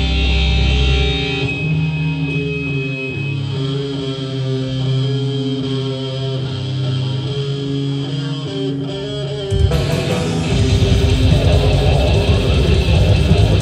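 Black metal band playing live through a PA. A quieter passage of held electric guitar notes with no drums gives way, about ten seconds in, to the full band coming in louder, with fast, dense drumming under the guitars.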